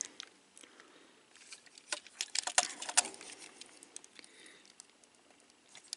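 Plastic parts of a Transformers Siege Springer action figure clicking and knocking as hands press its pieces into their tabs during transformation. A quick run of sharp clicks comes about two to three seconds in, with fainter handling clicks either side.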